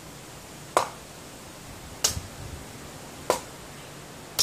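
A Hanwei Viking sword's steel blade chopping into a wooden stump in repeated overhead blows, giving four sharp strikes about one every 1.3 seconds, as a test of the edge's retention.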